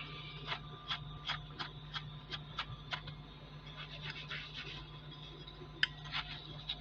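Scouring pad rubbed back and forth over a small diecast metal car body, short scraping strokes about three a second with a brief pause midway and a sharp click near the end.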